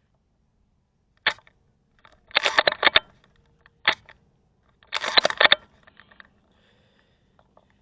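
Scoped airsoft rifle firing single sharp shots about 2.5 s apart, each followed about a second later by a quick string of four or five clacks.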